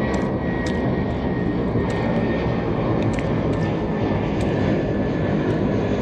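Small fixed-wing airplane flying over, its engine a steady drone, with a few faint ticks on top.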